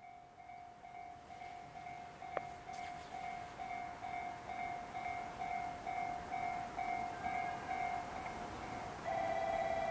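An electronic railway warning bell rings a single steady ding about three times a second. There is a sharp click about two and a half seconds in. Near the end a louder, fast-warbling tone at the same pitch takes over.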